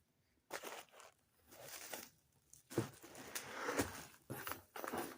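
Packing padding and wrapping being pulled from a box and unwrapped: irregular rustling, crinkling and tearing, busiest a few seconds in.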